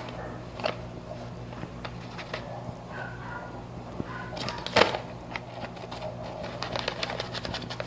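Brown paper bag crinkling and crackling as a cat moves about under it and a hand handles the bag. Irregular crackles, the loudest about five seconds in, then a quick run of crackles near the end, over a steady low hum.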